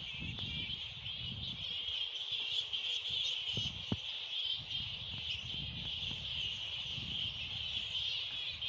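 Steady, unbroken high-pitched insect chorus, typical of crickets, over a low uneven rumble, with a sharp click about four seconds in.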